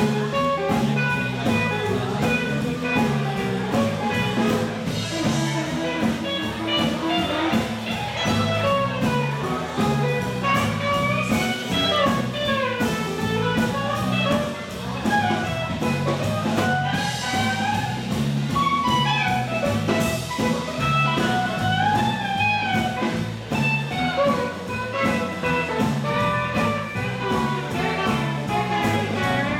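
Live swing band playing an uptempo jazz-blues instrumental, with an electric guitar lead line rising and falling over a steady bass and drum beat.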